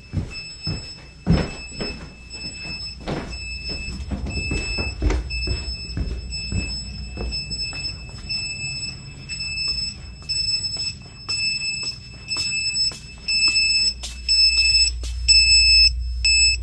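Sump pump battery backup alarm beeping, a high tone at about two beeps a second, growing louder toward the end. The alarm signals that mains power is out and the pumps are running on the backup. A few footstep thuds on wooden stairs come in the first seconds, over a low hum.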